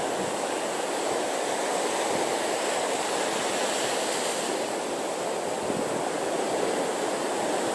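Sea surf breaking and washing on a beach, a steady rush of waves.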